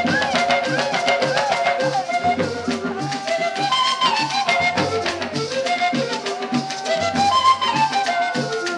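Cumbia music: a melody that bends in pitch over steady, evenly repeating percussion.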